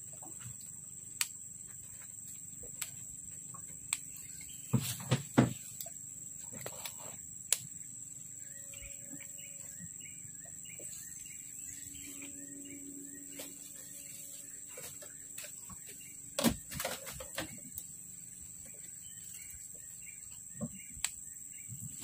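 Riverbank ambience: a steady high insect buzz, a bird giving a long run of short repeated chirps through the middle, and scattered knocks, the loudest about five seconds in and again near seventeen seconds.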